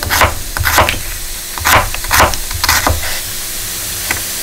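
Kitchen knife slicing through a white onion onto a wooden cutting board: a crisp cut and knock against the board about twice a second, dying away near the end.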